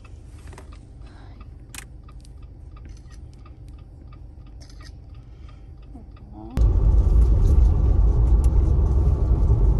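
A low steady hum with faint scattered ticks, then about two-thirds of the way in an abrupt jump to loud, steady road and engine rumble inside a moving car.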